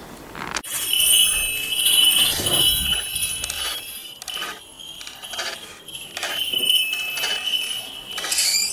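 Small brass falconry bells jingling and ringing in uneven bursts as they are shaken, starting suddenly about half a second in.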